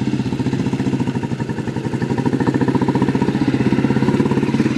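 Motorcycle engines running in a rapid, even beat of firing pulses, growing a little louder as the bikes ride closer.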